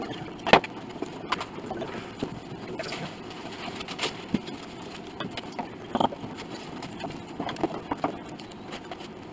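Scattered wooden knocks and clicks a few seconds apart, the sharpest about half a second in, as wedges are set against the ribs on the back of an upright piano's soundboard.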